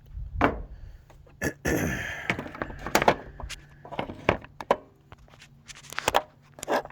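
Handling noise: irregular thunks and clicks, with a brief scraping rustle about two seconds in.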